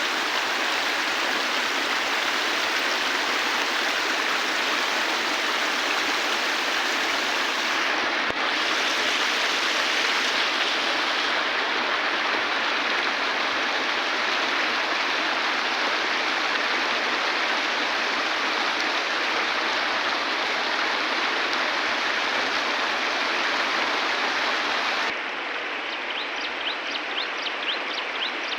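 River water rushing steadily. Near the end it drops suddenly to a softer rush, and a quick run of faint high chirps, about four or five a second, comes in over it.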